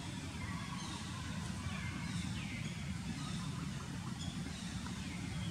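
Outdoor ambience: short, falling bird chirps repeat every second or so over a steady low rumble.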